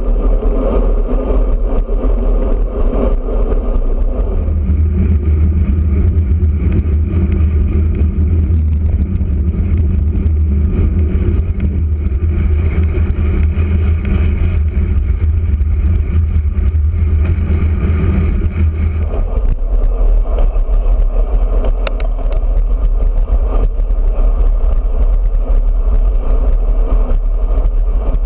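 Wind rushing over a handlebar-mounted camera's microphone on a moving road bike, a loud, steady low rumble mixed with tyre noise on asphalt. The rumble deepens and grows stronger from about four seconds in until near the two-thirds mark, then returns to its first character.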